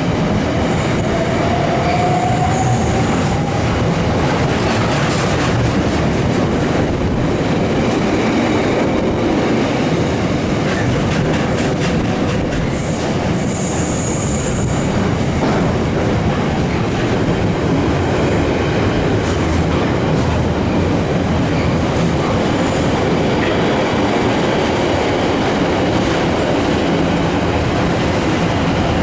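Container freight train wagons rolling steadily past at speed, a continuous rumble and rattle of wheels on rails. Brief high-pitched squeals rise above it about two seconds in and again around fourteen seconds in.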